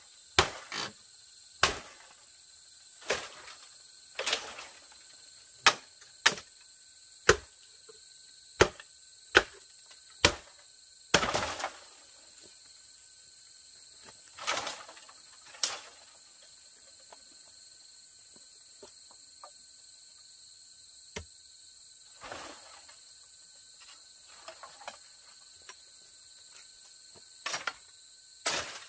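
A machete chopping into a green bamboo stalk: about a dozen sharp strikes roughly one a second, with a longer crackling rustle about eleven seconds in, then a few lighter strikes near the end. Insects drone steadily in the background.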